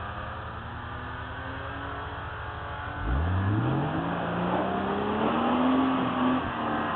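Off-road vehicle's engine running at a low, steady speed, then revving up about three seconds in, its pitch rising and the sound getting louder as it accelerates.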